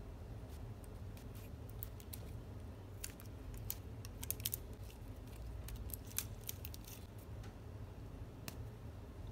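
Small sharp plastic clicks and crinkles, many in a row and thickest in the middle, as a plastic squeeze tube of lip gloss is unwrapped and its cap worked open by hand.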